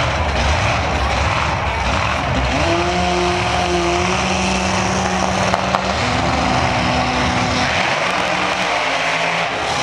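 Loud V8 engine running at high revs, its pitch held steady and stepping up and down a few times.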